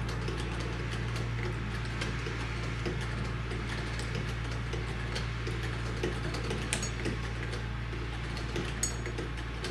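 Antique Singer hand-crank sewing machine, serial-dated 1910, being cranked as it stitches fabric: a steady mechanical clatter with scattered sharper ticks.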